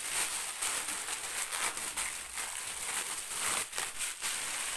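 Clear plastic shoe bag crinkling and rustling as a shoe is worked out of it by hand, with many small crackles.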